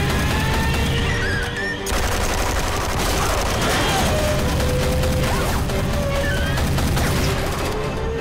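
Sustained rapid automatic gunfire from several rifles, a dense fusillade of shots that breaks off briefly about two seconds in and then runs on.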